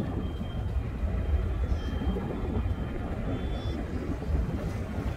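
Steady low rumble of a car driving slowly, heard from inside the car: engine and tyre drone. Faint short high chirps come every couple of seconds.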